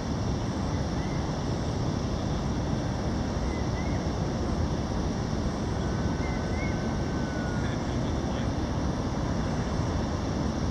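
Steady wind noise buffeting the microphone on an exposed mountain summit, with a few faint short chirps now and then.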